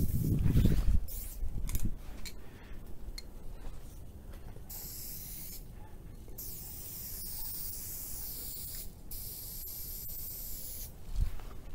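Aerosol spray paint can hissing in several separate bursts of a second or two each, with low rumbling thumps in the first two seconds.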